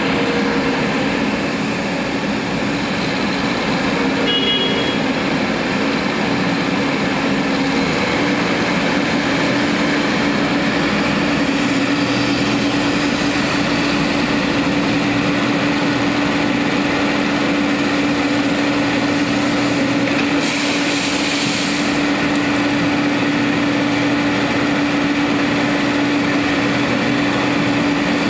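Construction machinery running steadily, a small engine close by together with a tracked excavator, with one constant engine note throughout. About two-thirds of the way through there is a short hiss lasting a second or two.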